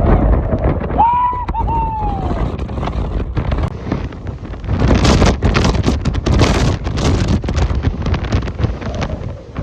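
Hurricane-force wind buffeting the microphone in a loud, constant rush, with stronger gusts about halfway through. A short falling whistle-like tone sounds about a second in.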